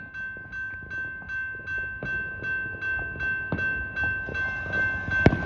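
Railroad crossing bell ringing steadily, about two and a half strikes a second, over the low rumble of an approaching train. A single sharp bang comes near the end.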